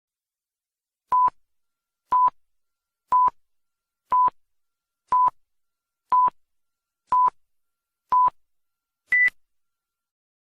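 Electronic countdown beeps: eight short beeps at one pitch, one per second, then a final higher beep.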